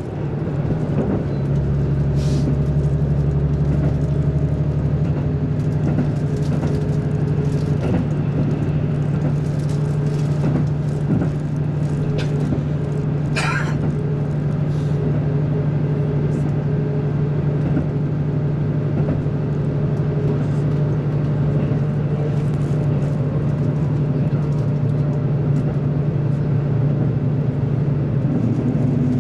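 Steady drone of a diesel train's engine and running gear heard inside the passenger cabin, with a strong, even hum. The deepest rumble drops away about a second and a half in, and a brief high squeak comes about halfway through.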